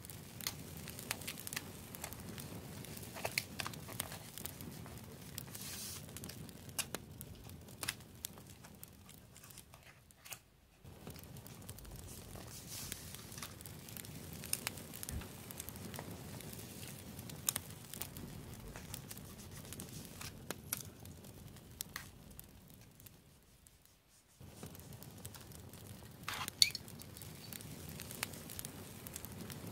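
Close-up paper sounds of sticker decorating in a journal: sticker paper crinkling and peeling, small clicks of metal tweezers placing stickers, and fingers rubbing them flat onto the page, with two brief pauses.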